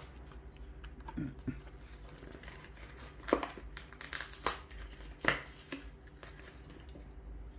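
Plastic blister packaging of a carded Hot Wheels car crinkling and crackling as it is handled, with three louder crackles about midway.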